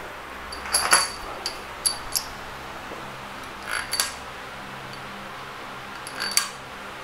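Light metallic clinks and taps of greased steel head-stud washers and nuts being handled and set onto an aluminium cylinder head. There are about half a dozen separate clicks, some with a brief high ring, over a faint steady hum.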